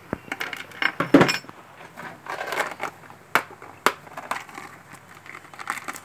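Clear plastic parts box being handled: a string of sharp clicks and short rustling rattles of plastic and small loose components.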